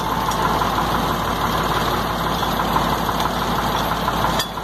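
Diesel truck engine idling, driving a cardan-shaft piston water pump, running steadily with no knocking. The dry knock is gone: a piece of rubber had been blocking the pump's water inlet.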